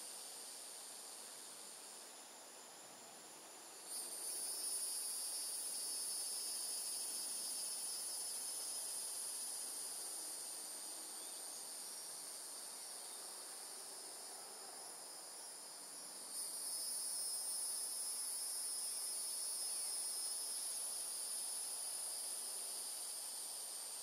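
Evening insect chorus humming steadily, a high-pitched, unbroken buzz. It steps louder about four seconds in, eases for a while, and swells again about two-thirds of the way through.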